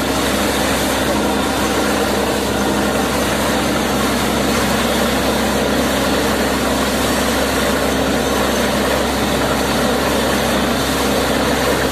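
Borewell drilling rig running steadily while compressed air blows water up out of a freshly drilled borewell. The water gushes from the casing and splashes onto the ground, a sign that the bore has struck water (a yield of about 2.5 inches).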